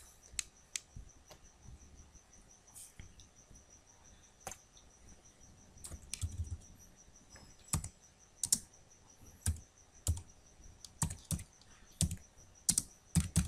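Typing on a computer keyboard: separate key clicks at an uneven pace, few at first and coming more often in the second half. A faint steady high whine sits underneath.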